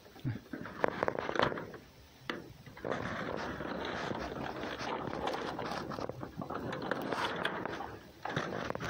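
An animal rustling and scraping in hay and straw against a wooden box. A few sharp clicks come in the first two seconds, then a steady rustle runs for about five seconds.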